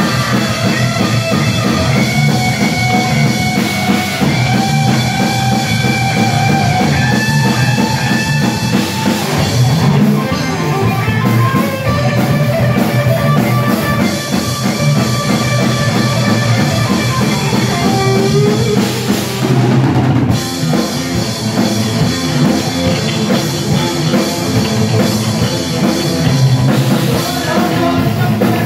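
Live rock band playing, with distorted electric guitar holding long notes over electric bass and a busy drum kit.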